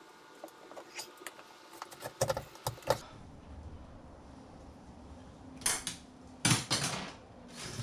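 Wire being worked through a boat's gunwale: light metallic clicks and rattles, then a few brief scraping rustles as coat-hanger and speaker wire are pulled through.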